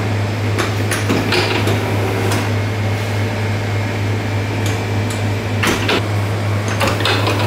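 Steady low machine hum of bakery equipment, with scattered light clicks and knocks as a slab of butter is handled and measured with a plastic ruler on the bench.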